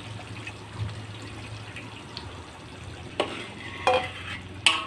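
Curry sauce frying in a wok as tamarind water is stirred into the spice paste with a spatula, a steady sizzle with the scrape of stirring. Three sharp knocks of the spatula against the wok in the last two seconds, the last two ringing briefly.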